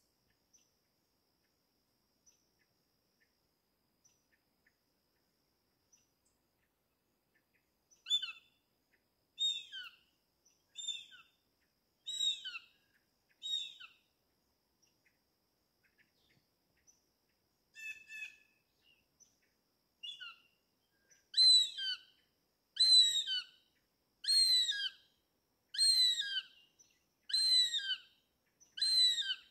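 Hawk calling: short, high, downward-sliding screams repeated about every second and a half. A first run of five calls comes about eight seconds in, then a couple of single calls, then six louder calls near the end.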